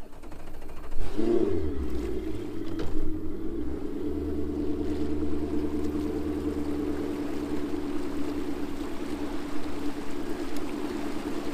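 Bass boat's outboard motor picking up, with a brief rise in pitch about a second in, then running steadily as the boat gets underway.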